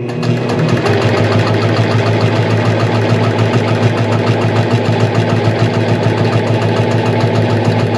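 APQS George sit-down longarm quilting machine stitching at a steady speed: an even motor hum with the needle's fast, regular stitching rhythm.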